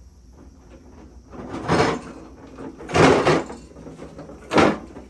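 Three loud, short bumps or scrapes about a second and a half apart, the middle one the longest.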